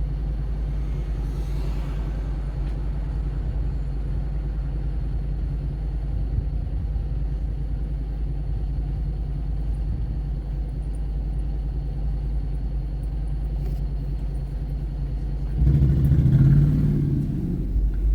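Car driving through city streets: a steady low road and engine rumble. About fifteen seconds in, a heavier, louder rumble rises for around two seconds, then eases back.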